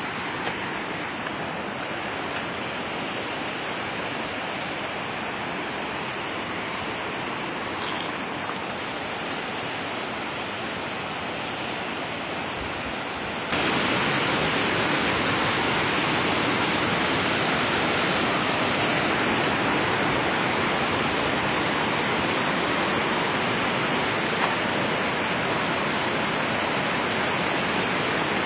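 Waterfall: a steady rush of falling water, which jumps suddenly louder about halfway through.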